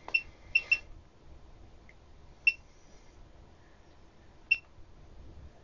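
Short electronic key beeps from a handheld process calibrator's keypad as its output voltage is stepped up. There are three quick beeps in the first second, then single beeps about two and a half and four and a half seconds in.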